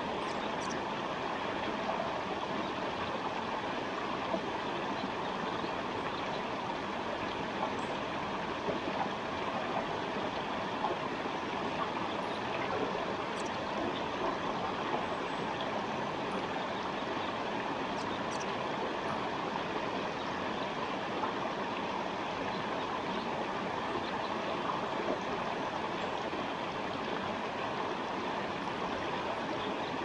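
Forest stream flowing, a steady, even rush of running water.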